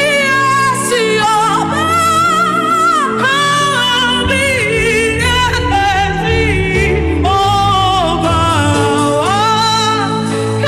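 Gospel worship song: a singer holding long, wavering notes that slide between pitches, over sustained instrumental chords.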